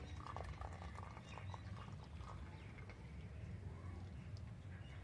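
Faint clinks and taps of a steel colander as boiled black chickpeas drain in it, over a low steady hum.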